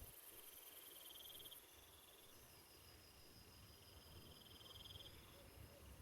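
Faint insect chirping: high-pitched pulsed trills that come and go, with a thin steady whine through the middle.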